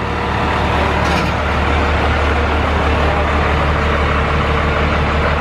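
Twin-turbo 12-valve Cummins diesel in a Ford pickup running with a deep, steady rumble. It grows louder in the first half-second, then holds steady.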